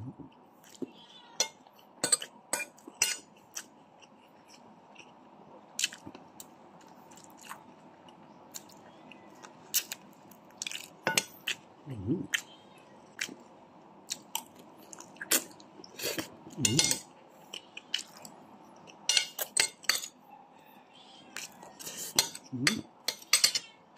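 Spoon and fork clicking and scraping irregularly against a plate, with chewing and biting sounds, while eating chicken adobo and rice.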